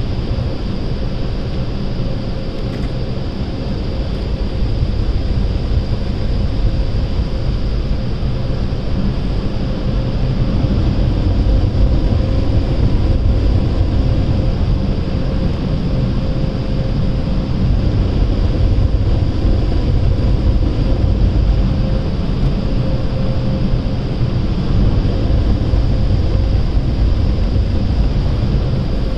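Automatic car wash air dryers blowing on the car, heard from inside the cabin: a loud, steady rush of air with a low rumble and a faint steady whine, growing a little louder about ten seconds in.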